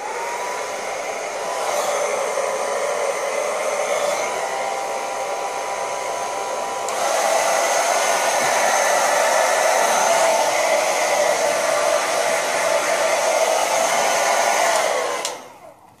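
Handheld hair dryer blowing steadily, its motor whining faintly. It gets louder about seven seconds in, then the motor winds down and stops shortly before the end.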